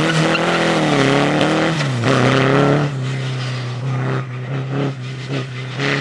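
Single-seater formula race car's engine revving hard as it passes close by, the pitch rising and falling with the throttle and dropping sharply about two seconds in. It then grows fainter, with short throttle bursts, as the car pulls away down the course.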